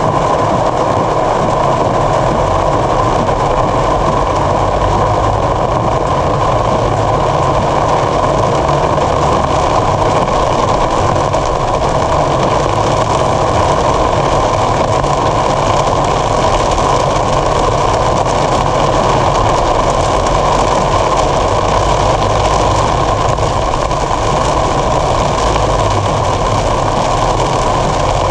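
Heavy downpour drumming steadily on a car's roof and windshield, heard from inside the moving car along with tyre noise on the flooded road.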